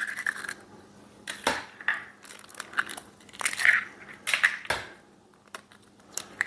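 Eggs being cracked and broken open into a stainless steel mixing bowl: a series of sharp shell cracks and clicks, growing sparser near the end.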